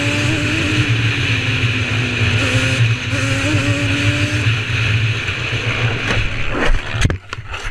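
A quad bike's engine running at a steady, slightly wavering pitch over a rushing noise. Near the end come several loud knocks, and then the engine sound drops away.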